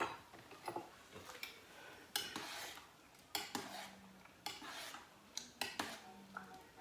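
Metal utensils clinking and scraping against a cooking pot, a series of sharp knocks and short scrapes with a brief metallic ring, as the tea is stirred and handled.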